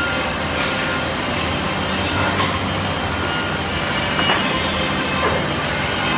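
CNC band saw running with its dust extraction: a steady machine hum with a low drone throughout. There is one sharp click a little over two seconds in, and brief rasping sounds around four and five seconds in.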